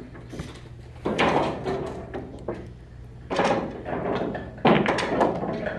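Pool balls knocking and rattling on a pool table in a run of sudden clacks. The sharpest, about three-quarters of the way through, fits the cue ball being shot into the racked cluster and scattering it.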